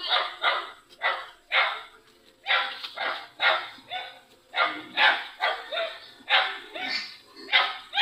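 A dog barking over and over, about two barks a second, with brief pauses about two and four seconds in.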